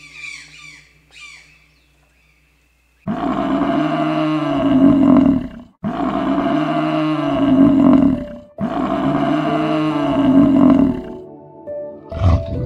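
A toucan gives a few short squawking calls, then a buffalo bellows loudly three times, each bellow about two and a half seconds long, rising and falling in pitch, the same call repeated.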